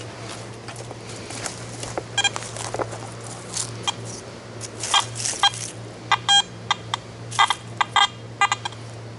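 Garrett AT Gold metal detector giving short, irregular beeps as its coil is swept over the ground: target tones, a few at first and then many close together in the second half. Footsteps crunch in dry leaf litter early on.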